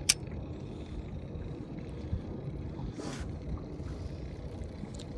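Low, buffeting wind rumble on the microphone in an open boat on the water, with a sharp click near the start and a short hiss about three seconds in.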